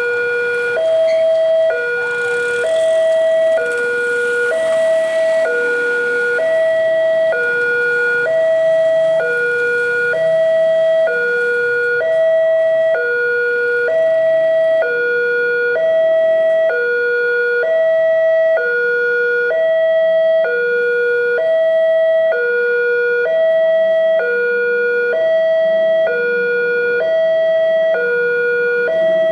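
Railroad level crossing's electronic warning alarm sounding a steady two-tone signal: a lower and a higher note of about a second each, alternating without a break. It is the warning that a train is approaching and the crossing is closing.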